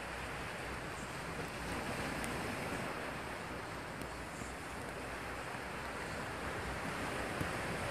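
Rough surf breaking and washing over a rocky boulder shore, a steady rushing wash that swells a little a couple of times, with some wind on the microphone.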